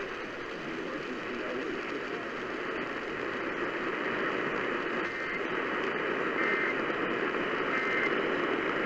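Radio static from a weakly received station: a steady hiss with faint, brief traces of programme audio underneath.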